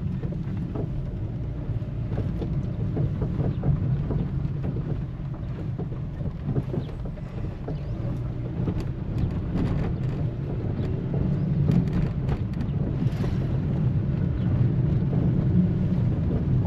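A vehicle driving on a rough road: a steady low engine and road rumble, with scattered knocks and rattles from the bumpy ride.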